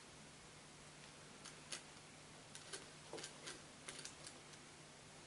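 Faint, scattered plastic clicks and taps from a small hamster drinking bottle being handled as its spout cap is fitted on, a dozen or so ticks, most of them in the middle seconds, over a faint steady hum.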